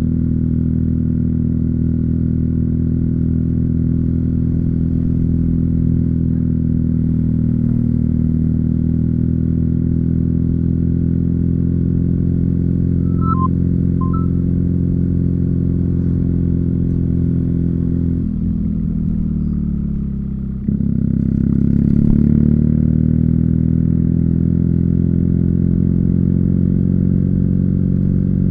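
BMW R nineT's 1170 cc flat-twin boxer engine through an Akrapovic slip-on exhaust, running steadily at cruising revs. About two-thirds through, the revs fall off the throttle for a couple of seconds, then the throttle opens suddenly and the revs climb again before settling.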